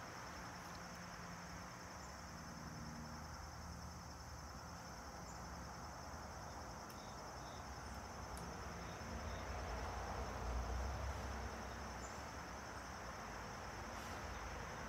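Steady high-pitched insect trilling over a low background rumble that swells briefly about ten seconds in.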